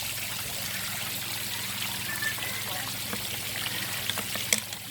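Steady running water, with a sharp click about four and a half seconds in.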